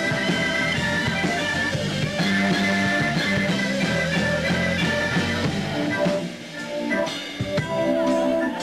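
Loud rock band recording with electric guitar and drum kit playing together. About six seconds in the band thins out for a moment, then long held chords come in near the end.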